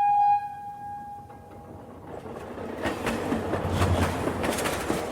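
Train sound effect: a train whistle sounds one held note that fades away over about two seconds, then the train runs along the track with a rhythmic clickety-clack of the wheels, growing louder.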